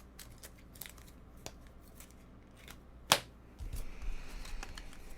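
Trading cards being handled and flipped through: light clicks and slides of card stock, with one sharp click about three seconds in, then low rumbling handling noise.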